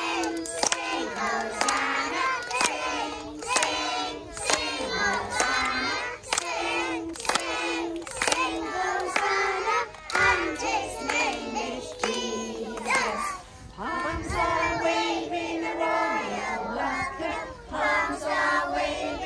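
A group of young children singing a song together in unison, clapping their hands along with it roughly once a second.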